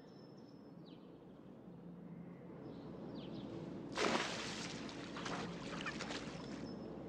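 A cat falls into a swimming pool with a sudden splash about four seconds in, followed by a couple of seconds of splashing as it struggles in the water. Faint bird chirps in the background before the splash.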